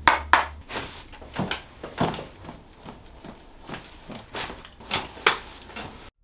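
A rapid series of sharp cracks from joints popping during chiropractic adjustments, about ten in six seconds, ending abruptly.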